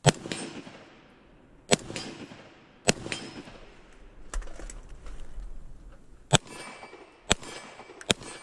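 Gunshots: six sharp reports, the first three about a second and a half apart and the last three about a second apart, each with a short echo trailing off. A much fainter report falls in the middle.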